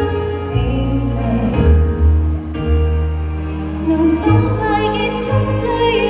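A woman singing a slow ballad into a microphone over a backing track, with held low bass notes underneath.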